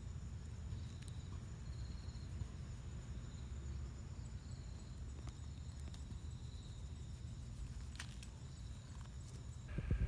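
Outdoor ambience: insects chirping in short repeated high notes over a thin steady high drone, with a low rumble of wind or handling on the microphone and a single sharp click about eight seconds in.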